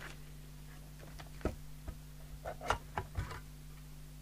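A handful of light clicks and knocks from the metal cover of a mobile CB radio being lifted off its chassis, mostly in the second half.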